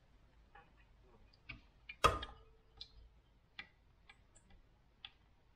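A spatula scraping passata out of a bowl into a food processor's stainless mixing bowl: scattered light clicks and taps, with one louder knock about two seconds in.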